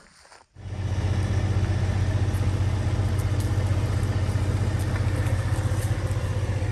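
Semi truck's diesel engine idling steadily with an even, fast pulse. It starts about half a second in.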